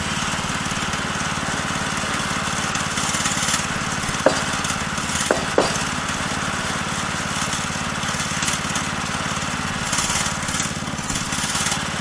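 Small gasoline engine of a Woodland Mills HM122 portable bandsaw sawmill running steadily, not cutting. Three sharp wooden knocks between about four and six seconds in as a sawn board is handled.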